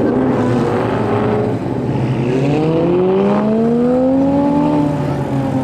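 Car engine revving up in one long rising pull from about two seconds in, levelling off and easing down near the end, over the steady running of other engines.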